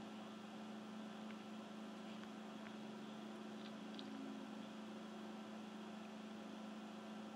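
Quiet room tone: a steady low hum over a faint even hiss.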